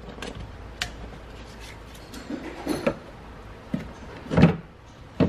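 Plastic clicks, scrapes and knocks as a car door speaker's plastic frame is worked loose and pulled off the metal door frame after its screws have been removed, with a louder knock about four seconds in.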